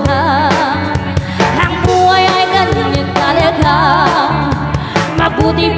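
Live band playing an upbeat pop song: steady drums and bass under a melody line that wavers with vibrato.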